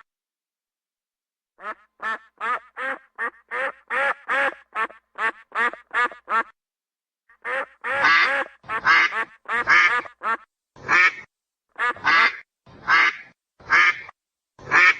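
Duck quacking. A quick series of short quacks, about three a second, is followed after a brief pause by louder, drawn-out quacks about once a second.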